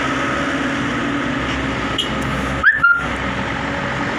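Diesel engine of a loaded sugarcane truck running steadily as it drives slowly over a railway level crossing. About two and a half seconds in there is a brief loud high chirp that rises and then holds for a moment.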